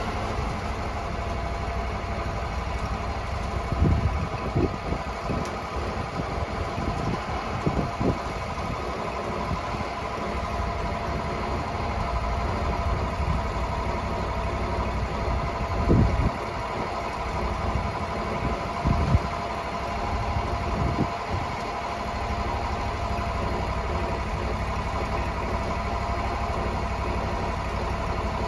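Sawmill engine idling steadily, with several heavy, low thumps scattered through it.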